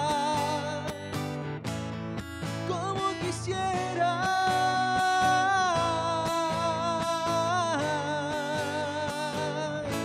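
A man sings long, held, wavering notes over a strummed acoustic guitar.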